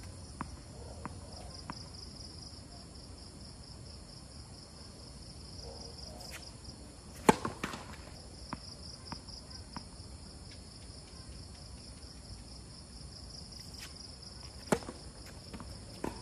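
Tennis rally in men's doubles on a hard court: a sharp racket-on-ball crack about seven seconds in, the serve and the loudest sound, with a couple of quicker knocks right after, then another hard shot about fifteen seconds in. A few light taps come in the first two seconds, and a steady pulsing insect chorus runs underneath.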